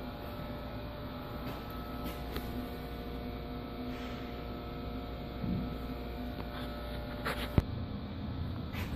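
A steady low hum with several steady tones in it, with a few faint clicks and one sharp click about seven and a half seconds in.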